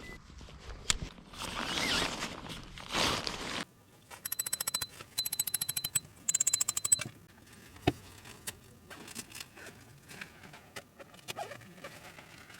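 Rustling and footsteps, then a zipper pulled in three quick runs of fast, even clicks, followed by a few light knocks.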